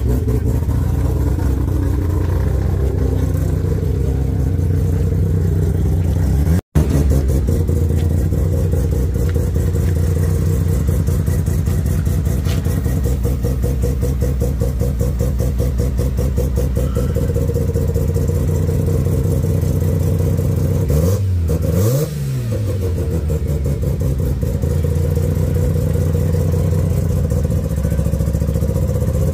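Modified sports car's engine idling steadily, blipped once into a short rev that rises and falls about 21 seconds in. The sound cuts out for an instant about seven seconds in.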